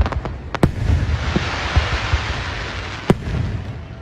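Aerial fireworks going off: sharp bangs about half a second in and again about three seconds in, with a dense crackle in between over a low rumble of booms.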